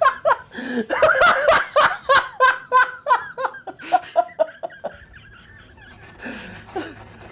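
People laughing hard in quick repeated bursts, dying away about four to five seconds in, followed by a faint steady low hum.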